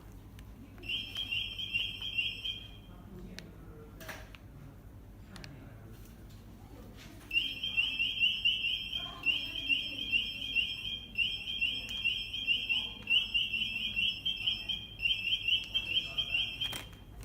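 Retail anti-theft (EAS) security gate alarm going off: a high-pitched electronic beep pulsing rapidly in runs of about a second. It sounds for about two seconds near the start, then again from about seven seconds in to the end, the sign that the gate has detected a security tag passing through.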